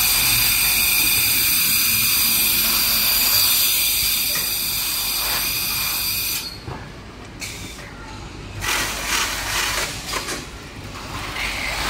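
Loud, steady hiss of escaping compressed air from pneumatic factory machinery, cutting off suddenly about six seconds in. After it, a lower machinery rumble with a few short, softer bursts of air hiss.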